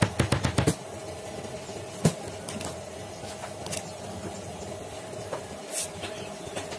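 Laminated wooden drawer fronts of a bed's storage base being handled: a quick run of knocks and taps as they are pressed into place, another knock about two seconds in, and a short sliding rush near the end as a drawer is pulled open. A steady hum runs underneath.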